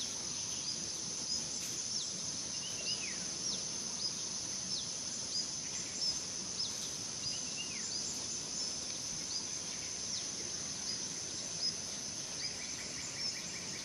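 Birds chirping over a steady, high insect buzz. One bird repeats a short high note about every two-thirds of a second, another gives a falling whistle twice, and a short trill comes near the end.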